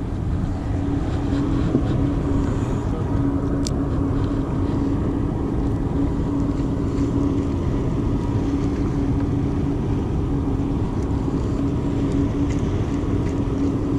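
Steady low engine hum with a constant droning tone. There is a single sharp tick about four seconds in.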